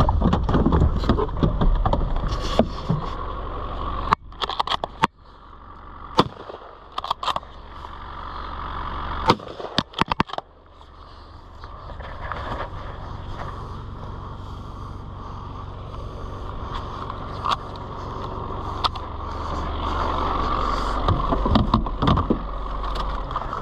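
Car engine running with a low rumble, dropping away after about four seconds; several sharp knocks and clicks come between about four and ten seconds in, and the engine rumble builds again for the rest.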